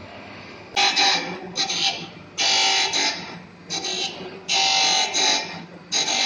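Surface grinder's abrasive wheel grinding a metal workpiece in repeated harsh bursts, one for each pass of the hand-fed table under the wheel, each lasting about half a second to a second. Before the first bite, about a second in, only the quieter steady running of the machine is heard.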